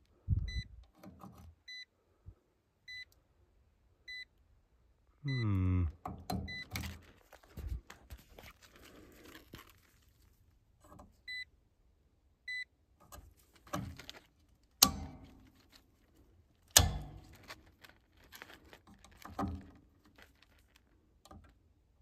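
A digital multimeter beeping with a short high beep about every second and a quarter while voltage is being measured at a breaker, amid the clicks and knocks of test leads and hands at the panel. Two sharp, loud clicks about two seconds apart come near the middle.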